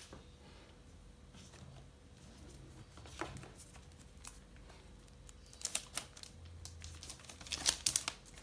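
A MacBook Air being lifted out of its cardboard box: soft scrapes and light taps, then a cluster of crisp rustling and crinkling from the laptop's protective wrap, loudest near the end.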